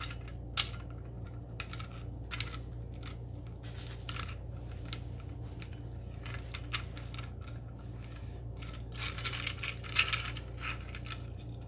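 Scattered small clicks and taps of hands fitting a screw and mounting bracket onto a bicycle headlight, with a quick flurry of clicks near the end, over a steady low hum.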